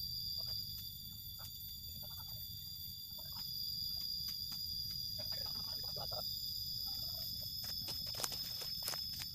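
Quiet background with a steady high-pitched whine and a low rumble, scattered light clicks, and several short animal calls.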